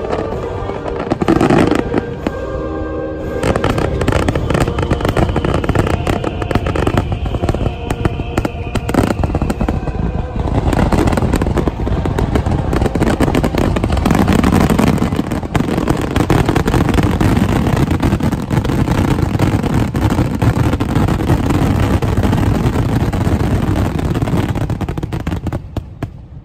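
A fireworks finale: a dense, continuous barrage of aerial shell bursts and crackling, with fountain fireworks firing, over orchestral show music. It stops abruptly near the end.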